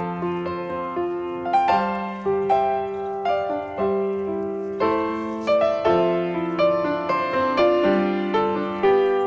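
Background piano music: gentle chords and melody notes struck about every half second, each ringing and fading.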